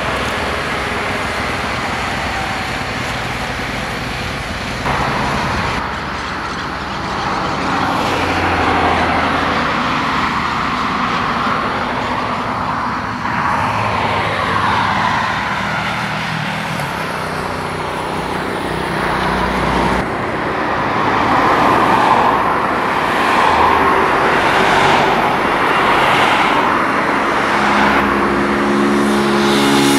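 Road traffic: cars and pickups passing one after another on a paved road, swelling louder in the second half.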